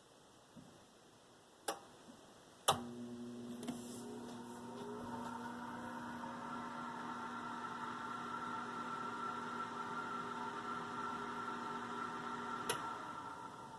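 Whirlpool electric oven's convection fan switching on with a click about three seconds in, preceded by a lighter click a second earlier. Its hum rises in pitch as it spins up, then holds a steady hum with a higher whine over it. It shuts off with another click near the end.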